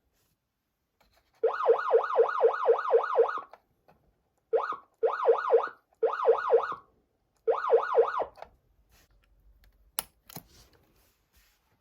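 Patlite electronic siren amplifier sounding a fast yelp-type siren tone, about four sweeps a second, switched on and off in several short bursts. A sharp click follows near the end.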